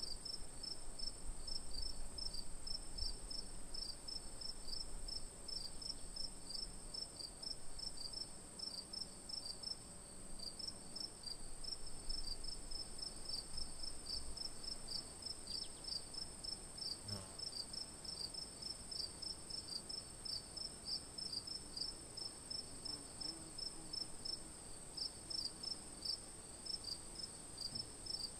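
Cricket-like insect chirping in a fast, even pulse, with a constant high whine above it.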